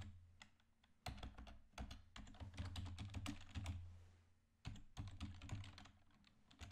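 Computer keyboard typing: quick runs of key clicks, with a short pause about four seconds in.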